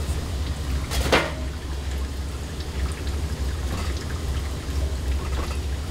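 Restaurant kitchen noise: a steady low hum under an even hiss, with one sharp clatter about a second in.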